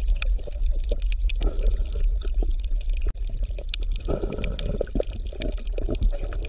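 Underwater water sound: a steady low rumble with bubbling, gurgling water and many scattered small clicks.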